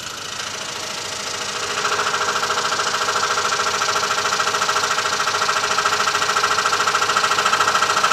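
Scroll saw running at a slowed speed with a number 2 jeweler's metal-cutting blade, cutting sheet metal sandwiched between thin plywood. It grows louder over the first two seconds, then holds a steady, fast rhythm of blade strokes.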